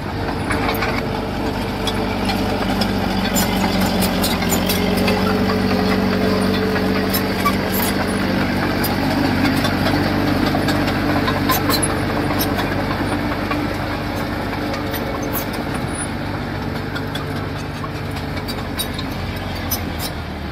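Diesel engine of a piece of earthmoving machinery running steadily under light load, its pitch shifting a little, with scattered faint clicks and clanks.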